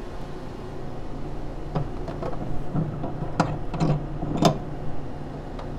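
Plastic and metal clicks and knocks of the build platform being unlatched and lifted out of an Origin One resin 3D printer, a handful of sharp taps from about two seconds in, the loudest near four and a half seconds, over a steady low hum.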